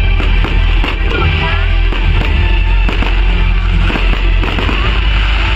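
Loud music with a heavy bass beat, over repeated sharp bangs from exploding fireworks.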